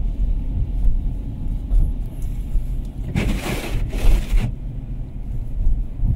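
Low steady rumble inside a car cabin in snowy weather, with one swishing sweep about three seconds in that lasts more than a second.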